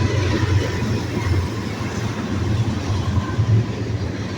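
BNSF train passing close by: a loud, steady low rumble.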